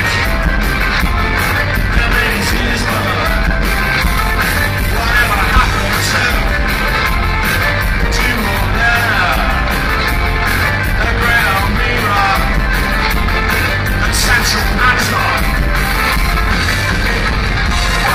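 Rock band playing loud and live, with singing over bass, drums, guitar and keyboards.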